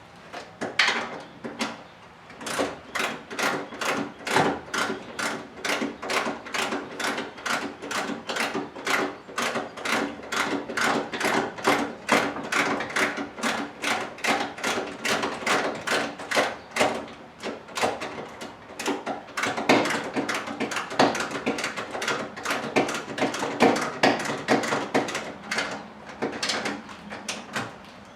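Hand ratchet wrench clicking in quick, even strokes, about three a second, as a bolt is run in.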